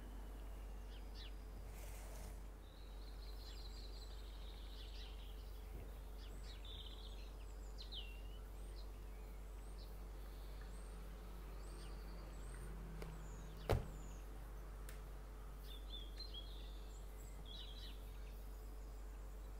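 Birds chirping faintly in the background over a steady low hum, with one sharp click about two-thirds of the way through.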